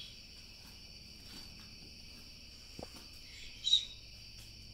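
Steady chorus of crickets trilling, with a faint click a little under three seconds in and a brief, sharp noise about half a second later that is the loudest moment.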